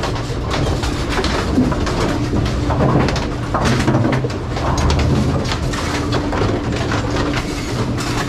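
A row of AMF 82-30 pinsetters running: a steady motor hum under irregular clanking and rattling of the machinery.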